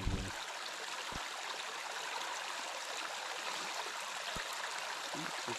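Small stream running steadily, a continuous rush of water where the current pours into a pool.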